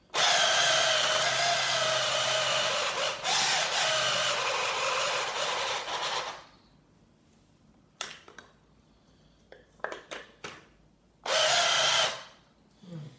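Corded electric mini chopper running with basil leaves in its bowl: one long run of about six seconds with a high motor whine, then a short burst of about a second near the end. A few light knocks in between as the chopper is handled.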